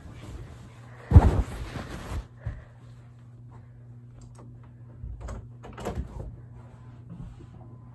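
A loud thump about a second in, followed by faint rustles and small knocks over a low steady hum.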